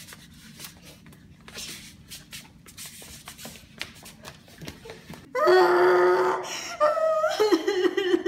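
Quiet scuffling and shuffling from a mock fight, then about five seconds in a girl's loud, drawn-out mock wail that falls and rises in pitch as she acts out being struck down.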